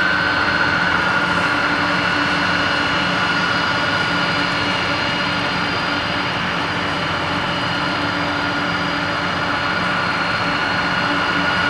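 Boeing 747-400's four turbofan engines running at taxi power as the jet rolls by. It is a steady high whine over a broad rush, and the main whine drops slightly in pitch about a second in.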